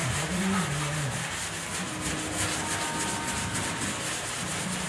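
Wet sanding of automotive primer on a steel pickup-bed panel by hand, using 320-grit wet/dry sandpaper on a flexible sanding block. It makes a steady, rhythmic rasp of quick back-and-forth strokes.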